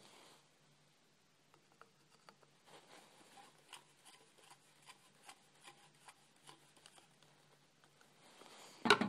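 Small screwdriver working a tiny screw in a telescope's secondary mirror holder: a run of faint clicks and scrapes, a few a second. A single sharp knock near the end is the loudest sound.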